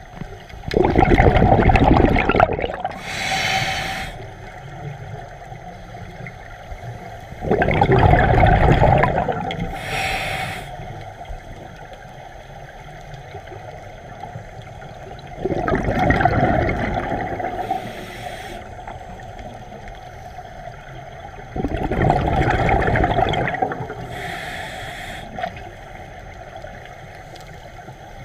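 Scuba diver breathing through a regulator underwater: four breaths, each a loud two-second rush of exhaled bubbles followed by a shorter, higher hiss, coming about every seven seconds.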